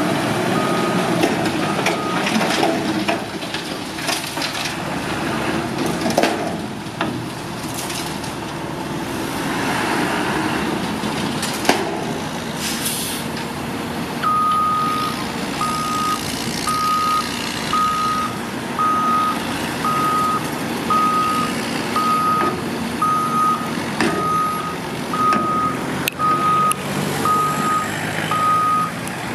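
Diesel engine of a dump-trailer truck running during tipping, with an electronic warning beeper repeating about once every 0.75 s, briefly at the start and again through the second half.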